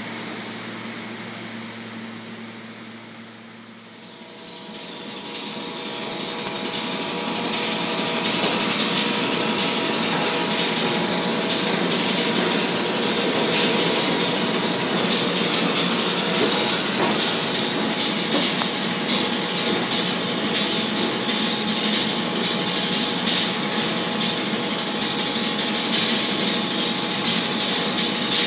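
SEPTA Regional Rail electric train running along the platform in an underground station: a loud steady rumble of wheels on rails with a few faint steady whining tones, building up from about four seconds in and holding.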